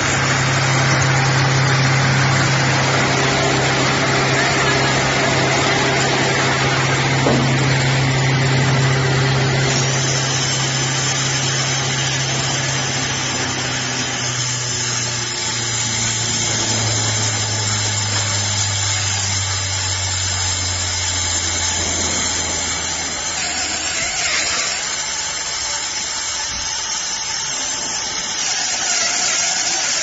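Silage round baler and packing machine running: a steady motor hum under a wide spread of mechanical noise. The hum drops in pitch about halfway through and fades out later on, while the mechanical noise carries on.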